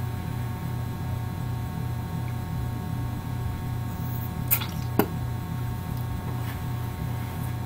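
Steady electrical hum with a faint regular pulsing, broken by two sharp clicks about half a second apart near the middle.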